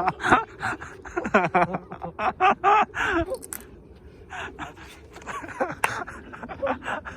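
Men laughing hard in breathless, gasping fits, with quick repeated pulses of laughter.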